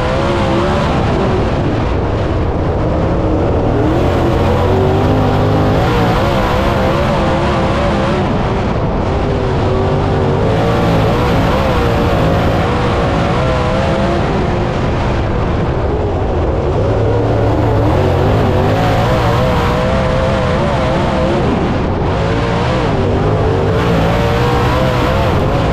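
Dirt late model V8 race engine running hard, its pitch wavering as it rises on the straights and drops off into the corners, about every six seconds.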